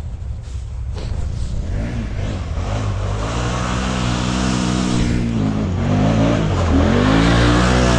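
ATV engine revving hard under load as the quad climbs a hill through rough ground. The revs rise, drop briefly about halfway through, then climb again, growing louder toward the end.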